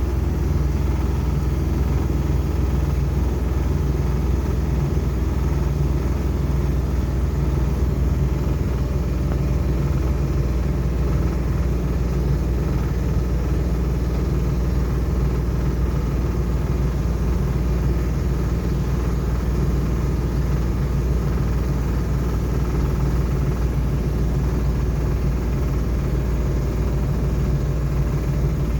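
Steady engine rumble of a motor vehicle, a low drone with a constant level.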